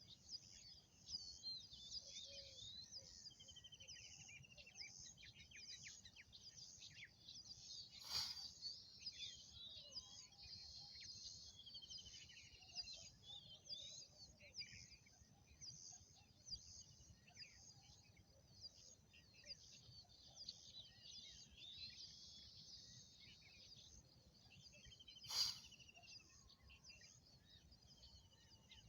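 Faint chirping and twittering of many small birds, going on steadily, with two brief sharp sounds, one about eight seconds in and one near the end.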